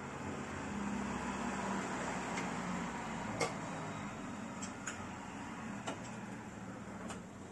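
A few light metallic clicks and taps of parts being handled at a motorcycle's rear shock absorber mount, the sharpest about halfway through, over a steady low hum.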